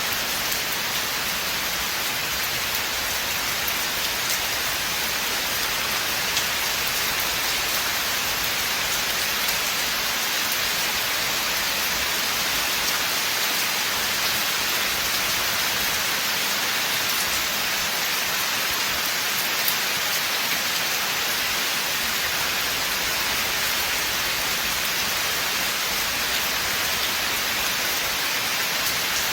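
Steady rain falling in a forest, an even hiss with scattered faint drop ticks.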